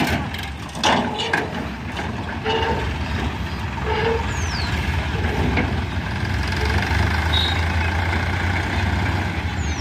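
Heavy diesel machinery engine running steadily, with two clunks in the first second.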